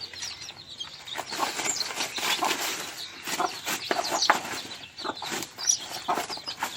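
Desi chickens clucking and calling in short, scattered notes.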